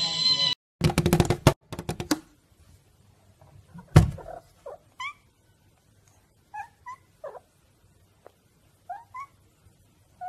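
A cat at a window pane: a run of knocks and bumps against the glass, one loud thump about four seconds in, then a series of short, faint chirping meows. A parakeet's call is cut off at the very start.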